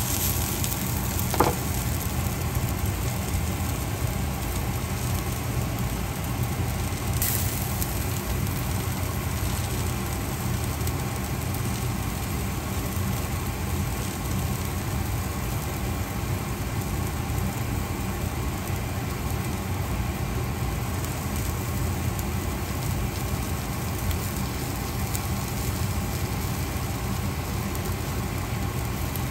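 Green beans and onions sizzling steadily in a frying pan as they brown, over a low rumble. There is one brief sharp sound about a second and a half in.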